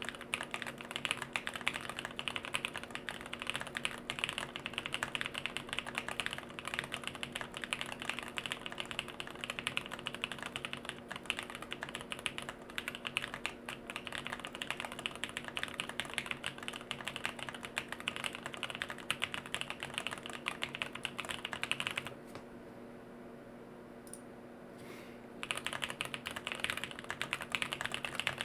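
Steady fast typing on a jLabs JP-02 mechanical keyboard with Bolsa Supply Corsa switches on an FR4 plate, no foam, and Durock V2 stabilizers. The keystrokes run densely, stop for about three seconds near the end apart from a single click, then resume.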